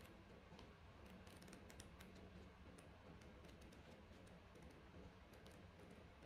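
Faint, scattered flicks and ticks of paper pages as a small softcover picture book is riffled through by hand, over quiet room hum.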